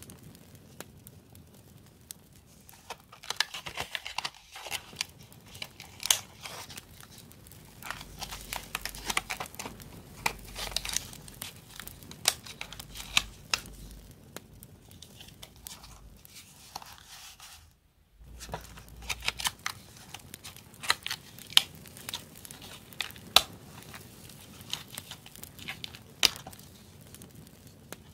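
Sheets of sticker paper and die-cut cardstock handled and shuffled by hand: crisp paper rustling with many sharp clicks and crackles, and a short pause near the middle.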